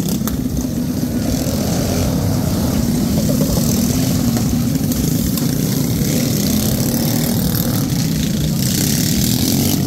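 Small-engine boonie bikes (homemade minibikes) racing, their engines running hard, with the pitch rising and falling as they accelerate and pass; one bike goes by close about four seconds in.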